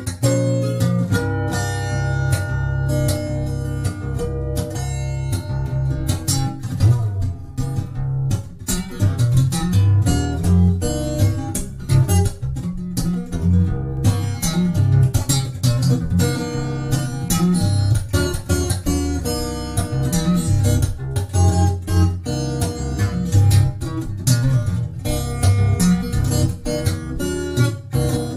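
Solo steel-string acoustic guitar played fingerstyle: a steady pulsing bass line under a picked melody.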